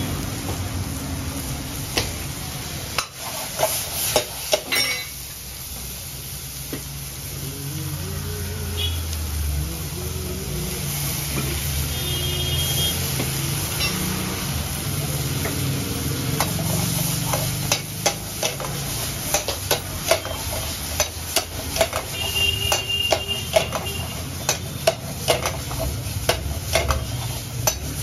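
Chilli chicken (chicken, onions and capsicum) sizzling as it is stir-fried in a wok over a gas burner, with a metal ladle clanking and scraping against the wok. The clanks come quick and often in the second half.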